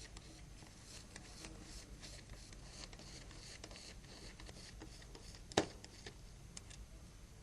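Faint small clicks and scrapes of a Torx Plus screwdriver working the screws out of a Nokia 6220's cover, with one sharper click about five and a half seconds in.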